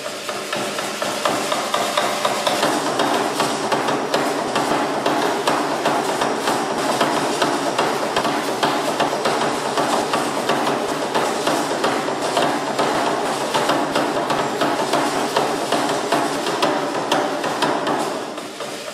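Dancers' seed-pod ankle rattles clattering in a fast, dense rhythm with their stamping steps, fading out at the very end.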